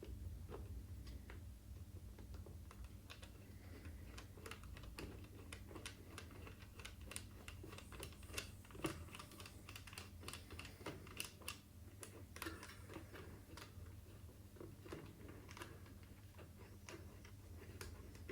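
Irregular light clicks and ticks of small screws being worked in by hand with a small tool, fixing the plastic computer console onto the air bike's stand, over a faint steady low hum.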